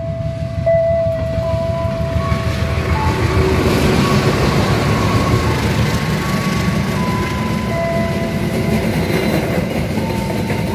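Passenger train hauled by a CC206 diesel-electric locomotive passing close by: engine running and steel wheels rumbling and clattering over the rails, growing louder about a second in. Thin high squealing tones come and go above the rumble.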